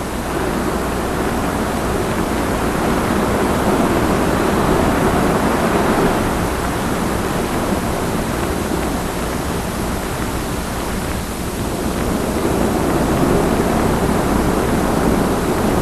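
Steady rush of ocean surf, swelling and easing slowly.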